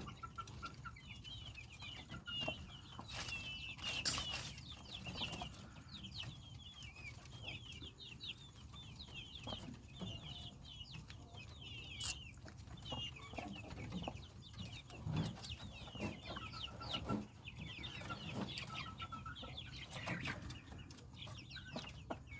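Bangkok chickens calling without a break, a busy stream of many short high chirps and clucks. A few sharp knocks stand out, a few seconds in and again about halfway through.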